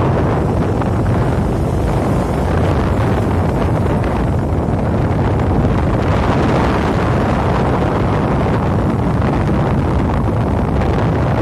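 Steady wind noise buffeting the microphone of a moving motorcycle, with the engine running underneath.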